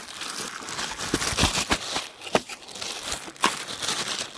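Plastic packaging crinkling and rustling as it is handled, with a few sharper crackles and taps along the way.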